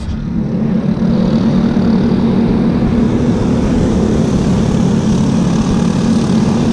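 A steady motor drone that holds level throughout.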